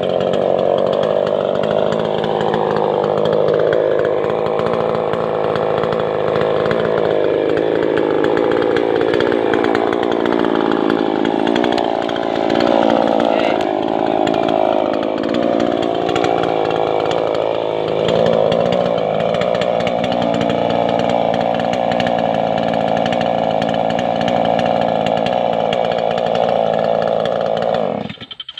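Stihl two-stroke chainsaw running at high revs while cutting wood, its engine pitch sagging and recovering under the load of the cut. The engine stops abruptly near the end.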